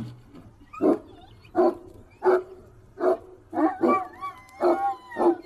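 A large dog barking repeatedly, about eight deep barks spaced well under a second apart. The barks come faster and more drawn-out near the end.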